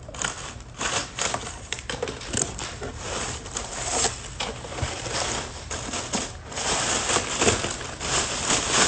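Cardboard box and its packaging being handled and rummaged through: irregular rustling, crinkling and scraping with scattered clicks and knocks.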